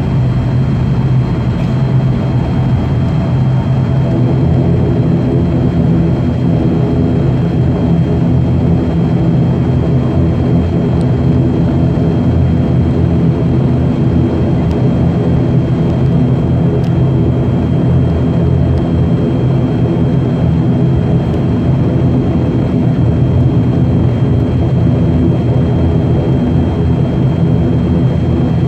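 Steady drone of the ATR72-600's Pratt & Whitney PW127M turboprop engine and propeller, heard from inside the cabin while the aircraft taxis, with a thin high whine running through it. The pitch pattern of the drone shifts slightly about four seconds in.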